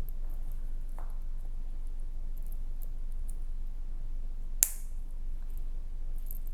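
Silver charms and clips being handled on a chain bracelet: a faint tick about a second in and one sharp click about four and a half seconds in, over a steady low hum.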